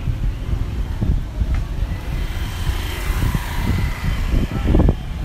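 Busy street ambience: a steady low rumble with a few dull thumps near the end, and passers-by talking faintly in the background.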